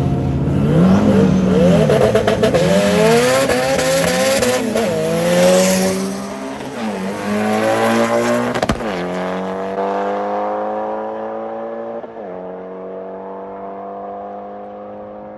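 Import drag race cars accelerating down the strip: the engine pitch climbs and drops with each gear shift in the first half, then pulls steadily higher in top gear as the cars fade away down the track. There is a short sharp crack a little past halfway, and another shift down in pitch about twelve seconds in.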